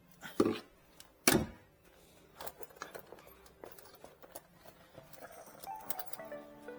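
Two loud knocks about a second apart, then lighter clicks and knocks of things being handled. Music fades in near the end.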